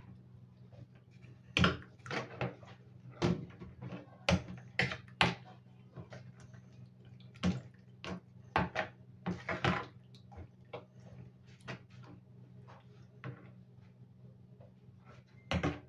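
Metal spoon stirring chicken livers in a wet marinade in a plastic bowl: irregular short scrapes and clicks of the spoon against the bowl, with a quick run of them about nine to ten seconds in.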